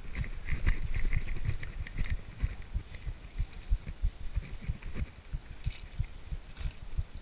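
Child's bicycle rolling slowly on a tarmac path, heard through a handlebar-mounted action camera: irregular low thumps and knocks from the bars and mount, busier and louder in the first two seconds, with a few faint clicks.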